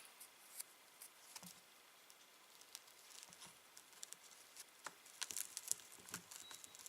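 Faint handling noise: scattered small clicks and rustles, coming thicker about five seconds in, as a piece of Velcro is pressed onto a small microphone inside a motorcycle helmet.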